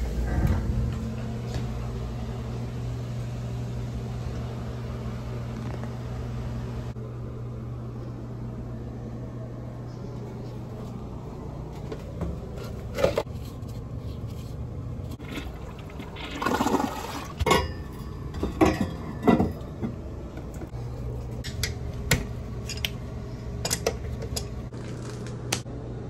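A newly installed toilet flushing, with water rushing in a few surges over a steady low hum, and scattered clicks and knocks.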